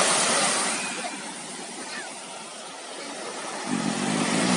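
Ocean surf washing onto the beach, swelling near the start, easing off, then swelling again near the end.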